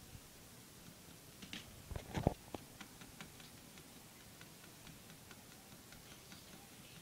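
Hamster scrabbling and moving about in a plastic cage tube: a scatter of small clicks and scratches, with a louder cluster of knocks about two seconds in, then sparse faint ticks.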